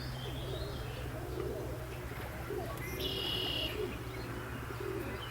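Domestic pigeons (white racing homers) cooing, several birds' low coos overlapping continuously. A brief high chirp sounds about three seconds in.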